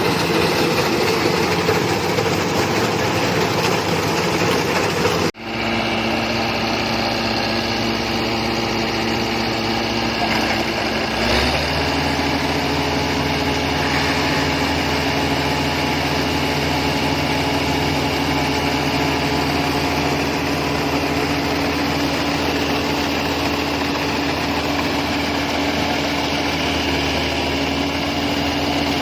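Rice combine harvester's engine running steadily. The sound cuts out for an instant about five seconds in, and around eleven seconds in its tone shifts and deepens, then holds steady.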